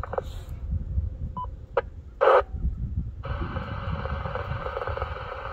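Yaesu FT-2980 2-meter mobile radio being switched to another repeater channel: short key beeps and clicks from its front-panel buttons, then about three seconds in a steady rush of radio static from its speaker.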